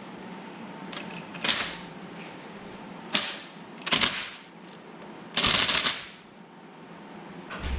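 Hand-tool work on a car engine: several short bursts of clattering tool noise. The longest and loudest comes about five and a half seconds in.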